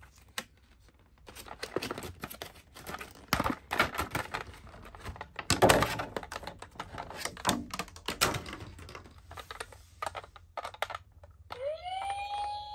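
Plastic toy cars and a blister pack being handled: a run of clicks, taps, knocks and crinkling plastic. Near the end a toy ambulance's electronic siren switches on with a quick rising tone that then holds steady.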